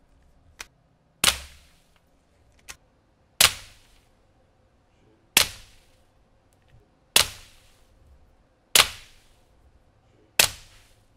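Suppressed .22 rimfire bolt-action rifle (Ruger Precision Rimfire) firing CCI Standard rounds through a Little Bird and then a Dead Air Mask suppressor: six sharp shots about two seconds apart, each trailing off in a short echo. Two much softer clicks fall between the first shots.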